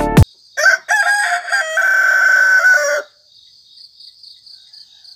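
Background music cuts off at the start, then a rooster crows once, a call of about two and a half seconds in several parts ending on a long held note. Faint crickets chirp in a steady pulse after it.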